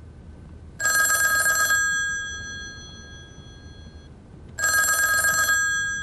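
An old-fashioned desk telephone's bell rings twice, each ring a rapid metallic trill about a second long whose tone fades away after it stops. It is an incoming call.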